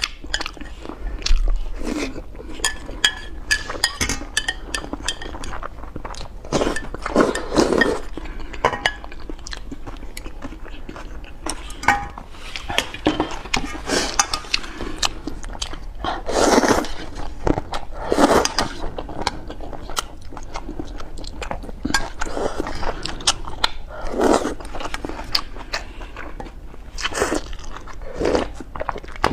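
Close-miked eating sounds: a person chewing and biting food, with many quick wet mouth clicks and several louder bites spread through.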